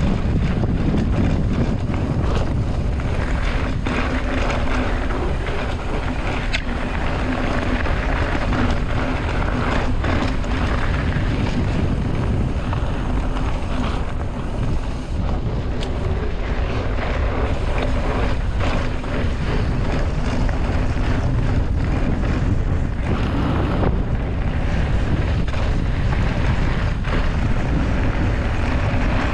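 Wind buffeting the microphone of a camera riding along on a mountain bike: a steady, loud, low rumble with scattered sharp knocks from the bike on a rough trail.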